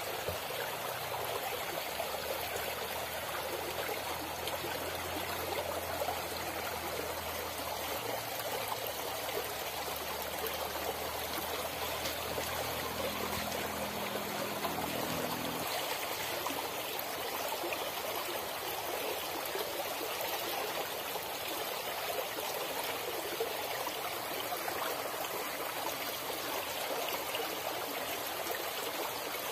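Small, shallow stream running over stones: steady rushing and trickling of water.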